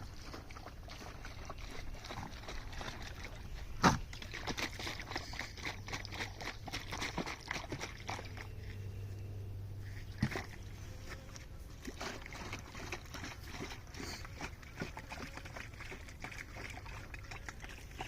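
Sugar syrup sloshing and trickling as it is poured into a hive feeder, with scattered small clicks of handling. A sharp knock about four seconds in is the loudest sound, and a lighter one comes about ten seconds in.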